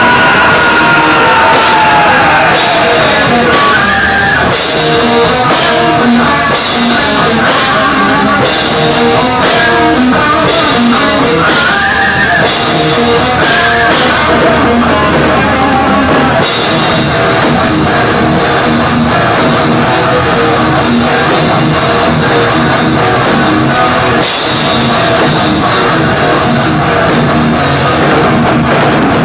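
Thrash metal band playing live at full volume: a drum kit and guitars, with the cymbals crashing in stretches that come and go. A pitch glides downward at the very start.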